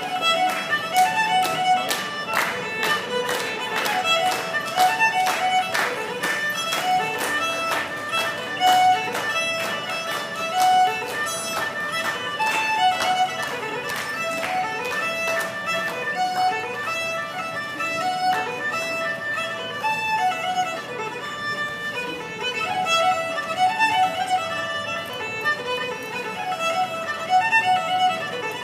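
Solo fiddle playing a fast tune in quick runs of notes, with sharp clicks through the first half.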